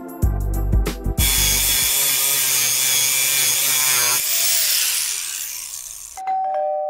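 Background music for about the first second, then a power tool's abrasive cut-off wheel cutting through steel rebar with a loud, steady whine. The wheel fades as it runs down, and a two-note chime sounds near the end.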